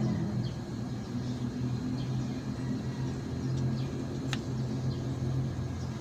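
Steady low mechanical hum, with short high bird-like chirps here and there and one sharp click about four seconds in.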